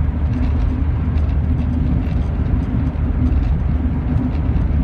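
Rover 45 driving along, heard from inside the cabin: a steady low engine and road rumble with tyre noise over it.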